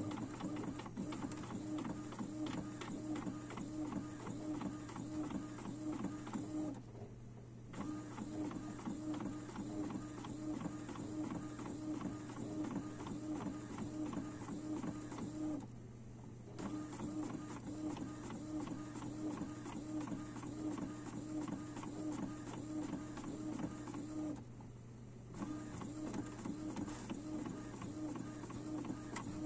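Epson XP-series inkjet printer printing: its print head shuttles back and forth in a rhythmic mechanical whir, broken by three short pauses about eight seconds apart.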